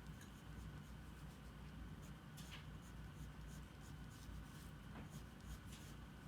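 Faint, irregular scratching of drawing strokes on paper, over a low steady hum.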